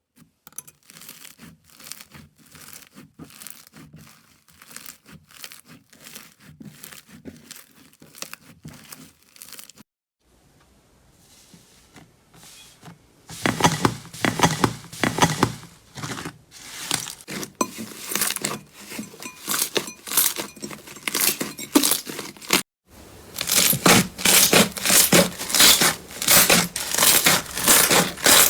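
Slime being squeezed and pulled by hand, giving a rapid run of crackles and pops. The crackling is soft at first, goes almost quiet for a few seconds, then turns much louder, with one short break about three-quarters of the way through.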